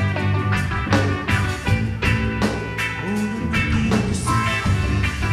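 Music: an instrumental passage of a rock-style song with a steady drum beat, bass and guitar, between sung verses.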